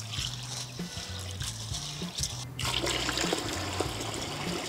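Rinse water from washed urad dal poured out of a bowl into a steel bucket: a steady gushing splash that starts a little over halfway in. Before it comes soft swishing of a hand rubbing the soaked lentils in water. Background music with steady low notes runs underneath.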